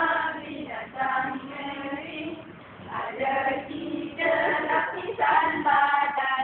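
A group of women singing a song together, in held notes with short breaks between phrases.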